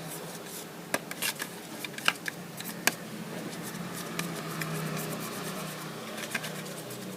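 A spoon stirring a liquid mixture in a plate, with scattered light clicks and scrapes of the spoon against the dish over a low steady hum.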